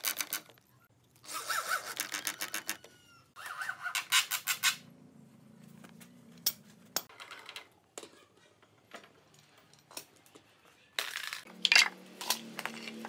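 Electric drill driving a long wood screw into pine in three bursts, the motor winding down in pitch after the second. Scattered light clicks and knocks follow, with a louder clatter about a second before the end.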